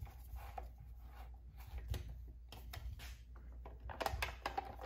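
Faint scattered clicks and light scraping of a T27 Torx key turning screws into a chainsaw's rear casing, with a quick run of clicks about four seconds in.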